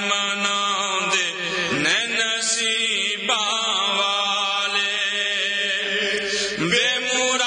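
Men's voices chanting an unaccompanied naat into microphones, drawing out long held notes that glide up and down in pitch over a steady low drone.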